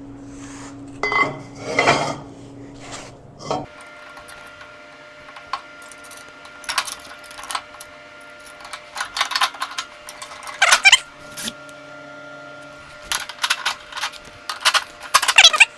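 Metal snowplow parts and bolts clinking and clanking as they are handled and fitted together during assembly, a string of irregular sharp knocks, some ringing briefly.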